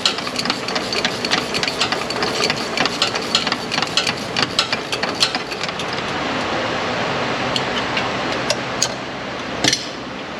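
Rapid metallic clicking from hand tools working on the truck's exhaust parts, dense for the first several seconds and then thinning to a few single clicks over a steady background hum.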